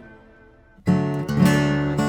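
Background music: a soft passage fades out, then strummed acoustic guitar chords start abruptly just under a second in.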